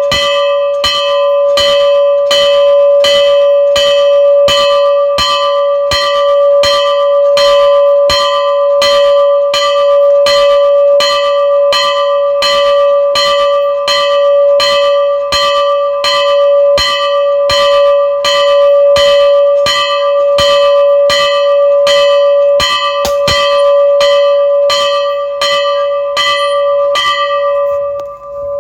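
Temple bell rung continuously with rapid, even strikes, about two a second, its ringing tone carrying on between strikes.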